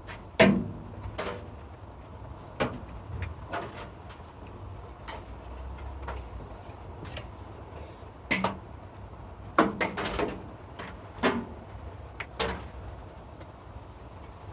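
About a dozen sharp clicks and knocks at irregular intervals, the loudest about half a second in, over a faint low hum.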